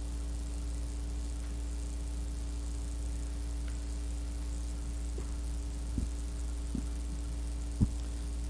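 Steady electrical mains hum on a cassette recording, with a few light knocks in the second half, the loudest near the end.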